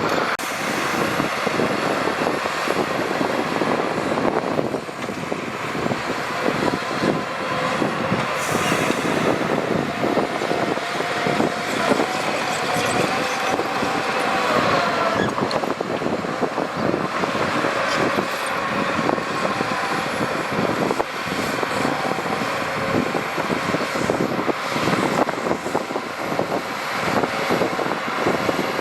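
Heavy diesel earthmoving machinery running steadily, with continual irregular clanking and rattling.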